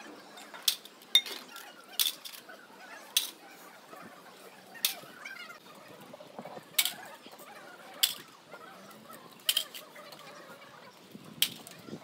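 Irregular sharp clinks of metal serving ladles and crockery, roughly one every second or two, as food is served from metal cooking pots onto plates. Beneath them is a faint background murmur.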